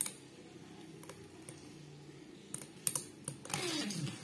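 Two homemade Beyblade spinning tops humming as they spin in a small stadium, clacking against each other several times. Near the end one wobbles and scrapes, its pitch falling as it winds down.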